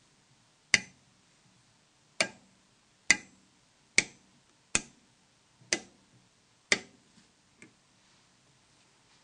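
Torque screwdriver clicking as each screw is tightened to its set torque: seven sharp clicks about a second apart, then a fainter eighth click near the end.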